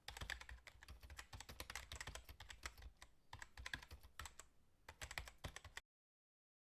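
Faint, rapid, irregular clicking, with a few short pauses, that cuts off abruptly about six seconds in.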